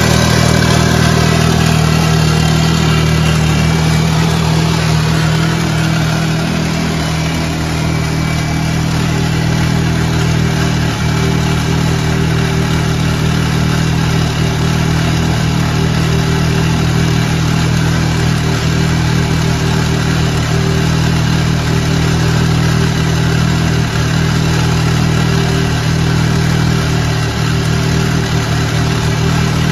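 Side-by-side UTV engine idling steadily, a constant low drone without revving.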